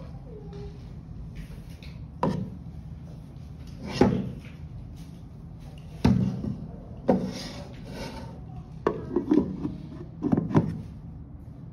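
Insulated plastic hotpot with a stainless steel bowl and its lid being handled, giving about eight sharp knocks and clatters as the parts are turned and set down on a table, over a steady low hum.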